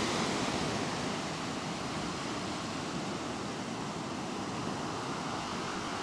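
Sea surf: waves breaking and washing up the shore, a steady rushing noise.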